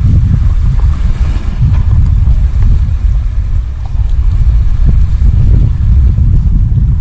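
Strong wind buffeting the microphone, a loud, gusty low rumble.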